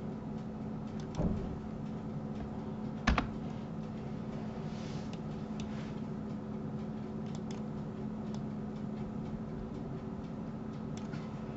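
Scattered computer keyboard and mouse clicks, single clicks a second or more apart, the loudest about three seconds in, over a steady low electrical hum.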